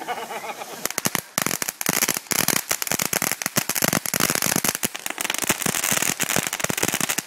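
Ground fireworks going off: a rapid run of crackling pops over the steady hiss of spark fountains, starting about a second in.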